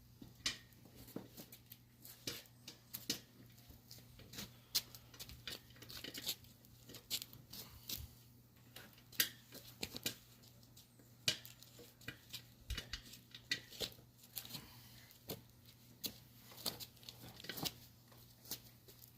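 Irregular clicks, taps and scrapes of hands and tools working a tire and inner tube onto a dirt-bike wheel rim, over a steady low hum.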